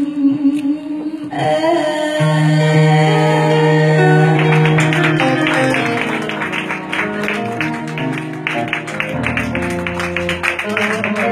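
Live Vietnamese ballad with keyboard and guitar: a woman's held, wavering sung note ends about a second in, then the band plays on, with quick plucked guitar notes from about four seconds in.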